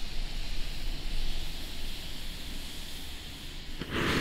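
Funke Geysir Kaliber C firework fountain burning with a steady hiss that eases off slightly, then, near the end, a sudden loud crackling rush as the fountain switches into its violent spark-ejection stage.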